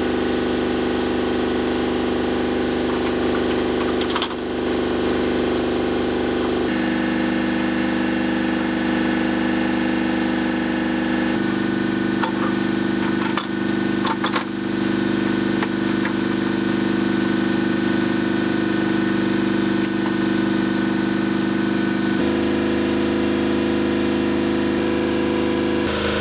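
Engine idling steadily, its hum changing in pitch abruptly three times, with a few sharp knocks of tool work on metal.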